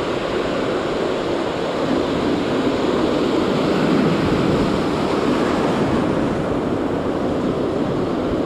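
Ocean surf breaking and washing in the shallows, a steady rushing that swells to its loudest about four seconds in as a wave breaks close by, then foam washing around.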